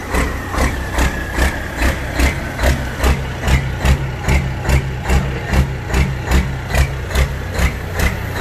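Detroit Diesel engine of a Peterbilt big-rig race truck idling after a burnout, with a heavy, lumpy lope of about two and a half pulses a second. A high whine falls in pitch and fades in the first second or so.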